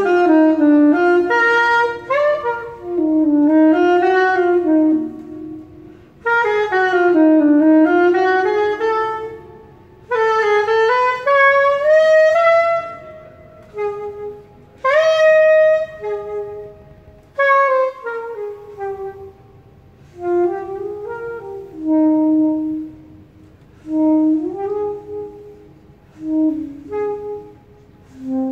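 Small curved saxophone playing an unaccompanied jazz improvisation: fast rising and falling runs in the first half, then shorter phrases of held notes separated by brief pauses.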